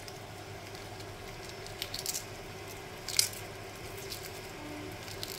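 Shell being cracked and peeled off a hard-boiled egg by hand: a few short crackling clicks, the sharpest about three seconds in, over a faint steady hum.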